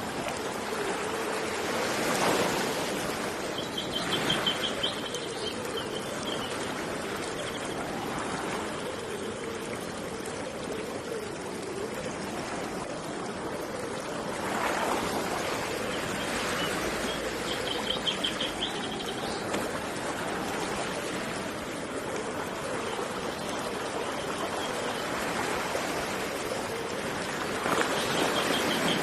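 Steady rushing of flowing river water that swells a few times. A small bird gives a quick high trill three times: once early, once in the middle and once near the end.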